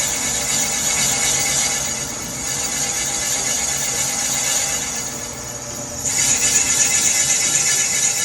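Machine cutter trimming the top off a new cylinder sleeve in a 5.7 Mercruiser 350 block, with a steady high-pitched squeal of the tool on the metal. It grows louder about six seconds in.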